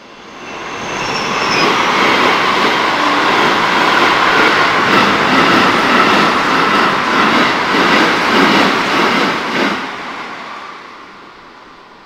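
Keikyu electric train passing over a level crossing. The rumble swells over the first two seconds, the wheels clack over the rail joints in a quick, even rhythm through the middle, and the sound dies away after about ten seconds.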